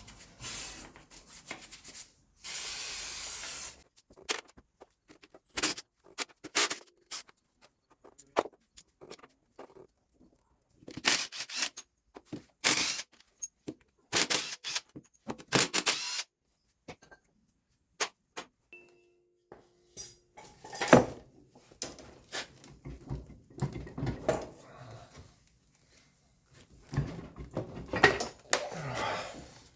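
Hand work on tractor parts: scattered clinks, scrapes and rubbing of tools and metal, with a steady spray hiss lasting about a second and a half near the start.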